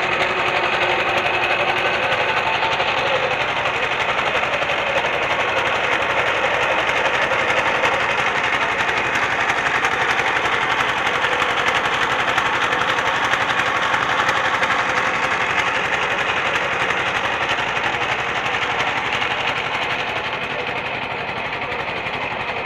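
Motorboat's diesel engine running steadily at cruising speed, with a rapid, even beat, a little quieter near the end.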